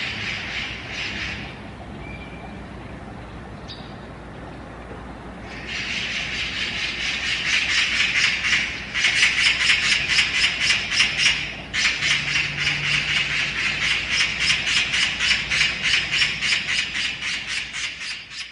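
Oriental magpie chattering: long runs of fast, harsh, rattling calls, with a lull of a few seconds near the start before the chatter resumes and carries on in long bouts.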